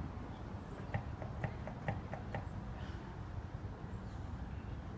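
A quick run of about seven short, sharp clicks or taps, roughly four a second, starting about a second in and lasting about a second and a half, over a steady low rumble.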